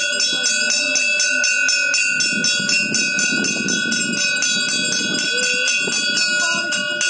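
Temple bell rung rapidly and without pause, about five strokes a second, during a puja at the shrine. Crowd voices murmur underneath, most in the middle.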